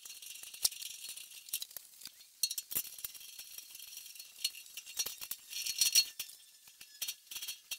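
Metal casters being screwed into the threaded foot sockets of a washing-machine housing with a T-handle tool: irregular metallic clicks and rattles, loudest about six seconds in.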